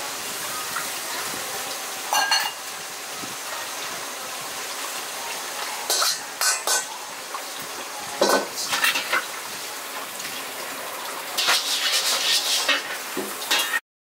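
Metal pots and utensils clattering in a working ramen-shop kitchen during soup preparation: several bursts of clinks and knocks over a steady background hiss. The sound cuts off abruptly near the end.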